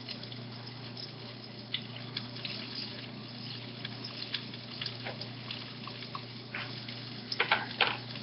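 Kitchen sounds while pancakes are being cooked and cut: scattered light clicks and clinks of utensils, with a louder few near the end, over a steady low hum and faint hiss.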